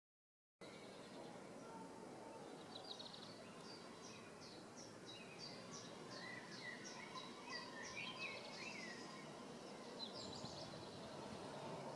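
Outdoor ambience with songbirds singing over a steady low background noise: a run of short high chirps repeating about twice a second, joined for a few seconds by a lower warbling phrase, and a brief high trill near the end. The sound cuts in suddenly about half a second in, after silence.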